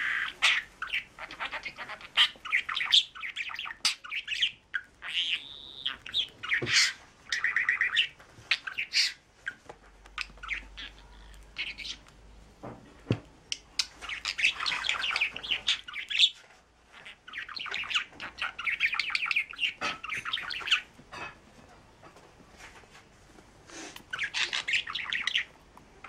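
Budgerigar chattering and warbling: long runs of fast chirps, clicks and trills, broken by a few short pauses.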